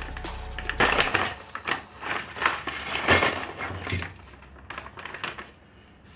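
A plastic zip-lock bag crinkling as it is opened, and small metal hardware (hose clamps and fittings) clinking as it is tipped out onto a cloth-covered bench. After about four seconds only lighter scattered clicks are left.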